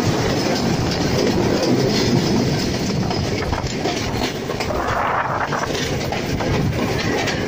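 Passenger train running along the track, heard from on board: a steady rumble with the clatter of its wheels over the rails.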